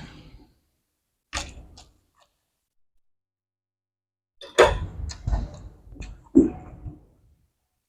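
Eating at close range: short bursts of chewing and mouth noise with clicks, one about a second in and a run of several from about halfway to near the end, with quiet between.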